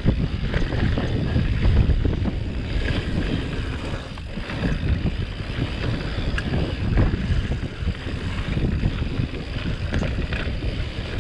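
Mountain bike riding down a rough dirt singletrack: tyres rumbling over the dirt and the bike rattling over bumps, with wind rushing on the microphone.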